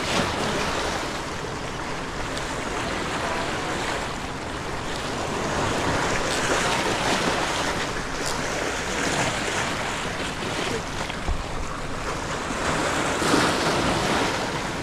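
Sea waves washing and breaking against breakwater rocks, swelling and easing, with wind buffeting the microphone.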